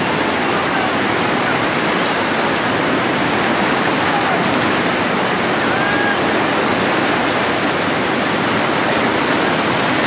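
Steady rushing of a grade 4 whitewater rapid on the Ganges, big breaking standing waves churning without a break.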